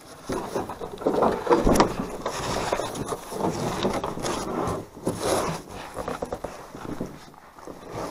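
A canoe being hoisted onto the shoulders and carried: irregular scraping and rustling of hands, clothing and the hull's wooden gunwales and yoke, with a sharp knock about two seconds in.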